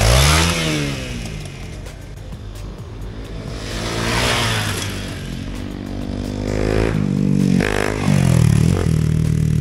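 Dual-sport motorcycles revving hard one after another as each runs up and jumps a dirt ramp: one right at the start, one about four seconds in and one about eight seconds in, engine pitch rising and dropping with each pass. Background music plays underneath.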